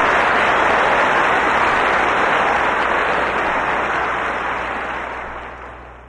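Audience applause at the end of a live performance, a dense even clapping that fades away over the last second or two.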